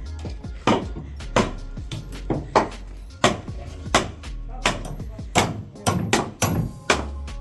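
Hammer driving nails into wooden shuttering planks: a dozen or so sharp blows, about one and a half a second, coming faster near the end.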